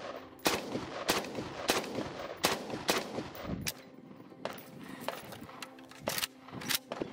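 Semi-automatic 5.56 AK-pattern rifle (Zastava ZPAP M85) firing single shots, about one every 0.6 s for the first three seconds, then a few more spaced farther apart. It is feeding and cycling from a hand-fitted Khyber Pass 84S clone magazine without a stoppage.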